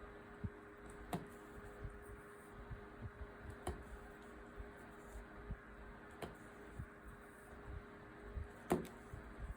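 Faint clicks and light taps of loops being pulled under one at a time while binding off a potholder on a traditional weaving loom, with a few sharper clicks about every two and a half seconds. A faint steady hum underneath.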